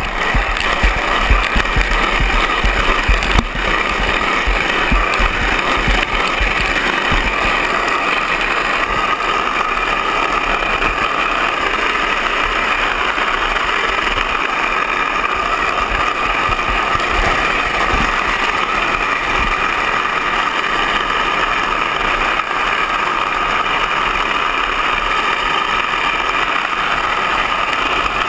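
Steel ball-bearing wheels of a downhill gravity cart rolling fast over wet asphalt: a loud, steady rolling rumble with a hiss, and wind buffeting the camera's microphone.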